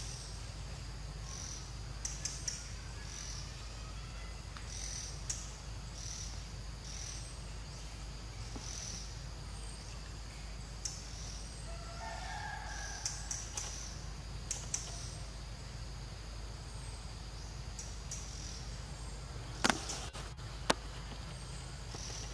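Outdoor forest ambience: short high-pitched bird chirps recurring every second or so over a steady low rumble, with a brief higher call about halfway through and two sharp clicks near the end.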